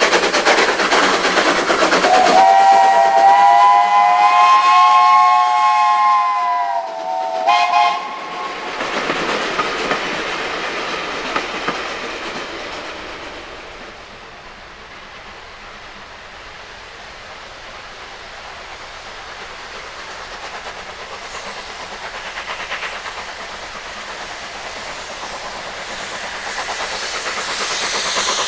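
Steam locomotive working a train: loud exhaust chuffing, then a long whistle blast of several tones sounding together from about two to seven seconds in, followed by a short second blast. The train then carries on with steady rolling wheel-and-rail noise that fades away and grows again near the end.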